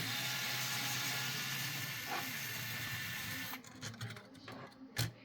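A small electric motor whirs steadily with a hiss for about three and a half seconds, then stops. A few light clicks and taps follow.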